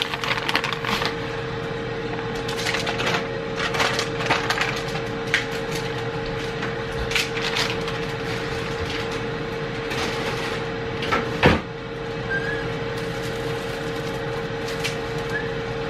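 Irregular scraping, crackling and light knocking of food being prepared by hand, with one louder knock about eleven and a half seconds in, over a steady hum.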